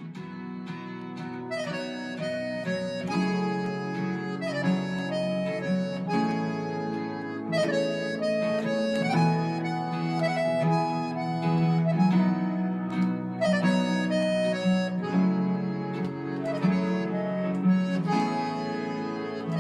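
Instrumental music: a melody of sustained reedy notes over plucked string chords, at a steady moderate level.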